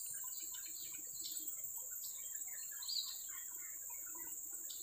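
Quiet outdoor ambience: a steady high-pitched insect drone, crickets or similar, with many short bird chirps scattered through it.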